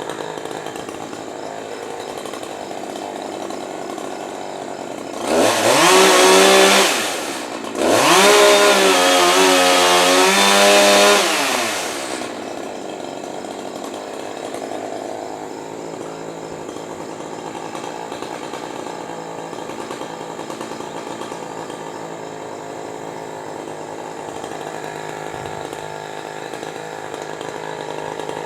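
Chainsaw engine idling, revved up to high speed twice, a brief burst and then a longer hold of a few seconds, each time dropping back to idle.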